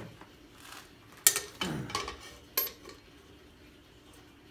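Metal parts clinking and clanking as a valve spring and retainer are taken off an aluminum cylinder head: a sharp clink about a second in, a short falling ring just after, and another clink a second later.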